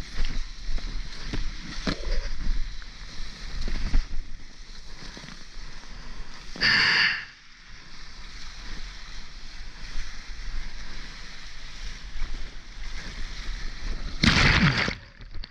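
Whitewater rushing and splashing close around a soft-top surfboard riding shorebreak, with wind buffeting the microphone. About halfway through comes a loud splash, and near the end a louder wash of water breaks over the microphone.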